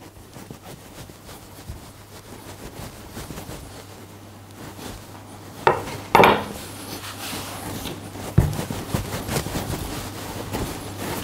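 A rolling pin rolling out crumbly pastry dough on a floured worktop, making a soft rubbing sound. There are a couple of sharp knocks about six seconds in and a thump a couple of seconds later.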